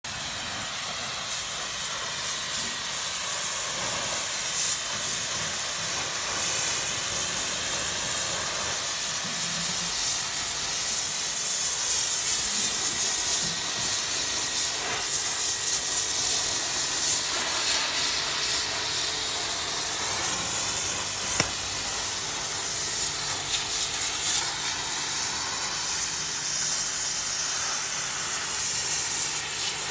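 Pressure washer's high-pressure water jet blasting grime off a masonry wall, a steady loud hiss.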